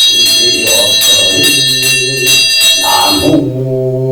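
A Buddhist monk chanting the end of an invocation over a handbell shaken in rapid, even strokes. About three seconds in the bell stops and a long, held chanted tone begins.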